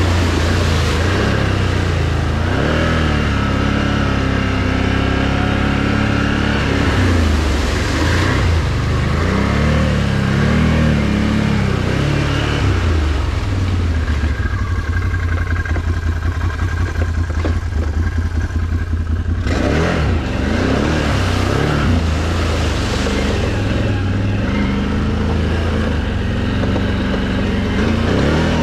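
Can-Am Renegade XMR 1000 ATV's V-twin engine revving up and down as it drives through flooded mud and standing water. About halfway through it drops to a slow, pulsing low rumble for several seconds, then picks up again.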